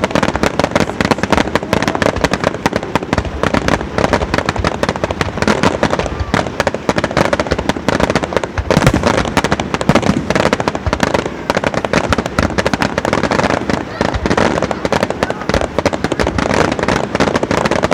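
Fireworks display: a dense, continuous barrage of bangs and crackling shells, loudest about nine seconds in.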